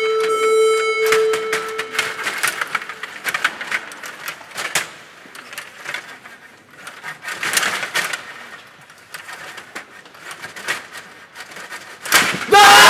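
Table hockey game in play: irregular clicks and knocks of the rods, plastic figures and puck striking each other and the boards. A steady beep fades out about two seconds in, and loud shouting and cheering break out just before the end.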